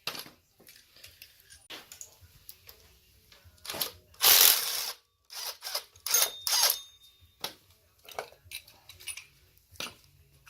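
Hand tools and metal engine parts clicking and clinking as the alternator and tensioner are unbolted and taken off, with a louder burst of ratchet-like clicking about four seconds in.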